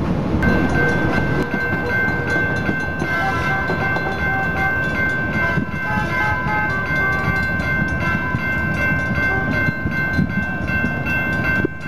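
Vintage PCC streetcar ride noise: a low rumble under a steady high-pitched whine that sets in about half a second in and holds almost to the end, with shorter tones coming and going in the middle.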